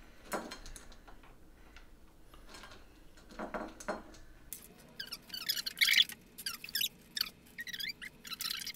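Conversation-heart candies being picked from ceramic bowls and set down on a wooden table: light clicks and scrapes, with many short high-pitched squeaks growing busier about halfway through.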